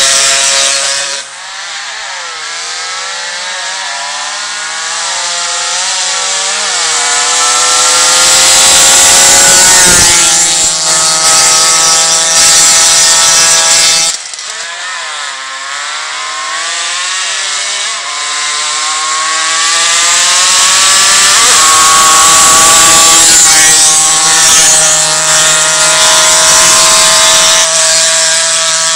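Racing mopeds' small two-stroke engines revving hard under full acceleration, the pitch climbing and dropping back again and again as they shift up through the gears. One bike passes close about ten seconds in, and another run starts around fourteen seconds and builds to its loudest past the twenty-second mark.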